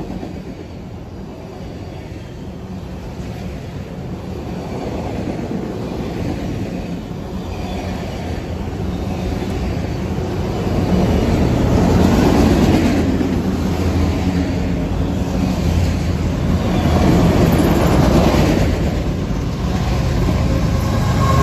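Freight train of autorack cars rolling past close by: steady heavy rumble of steel wheels on the rails with rhythmic clattering, growing louder about halfway through.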